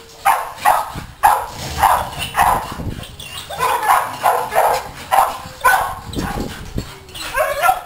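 Pit bull barking in quick, repeated barks, about two a second, a dozen or so in all.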